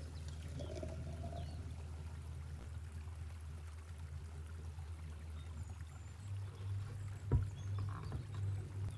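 Thick blended beetroot and pumpkin juice being poured from a plastic blender jug into a glass cup, over a steady low hum. Near the end comes a single sharp knock as a bamboo cutting board is set down.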